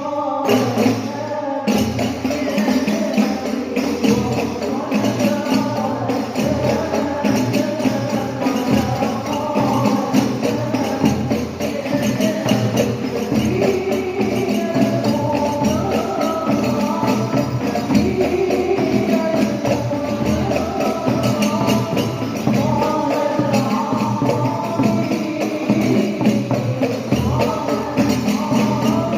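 Hadroh ensemble: rebana frame drums with jingles play a steady, dense rhythm under a sung devotional melody.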